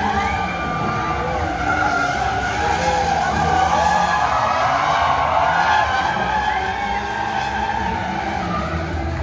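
Stunt car drifting, its tyres squealing in a long, wavering screech over the steady drone of its engine.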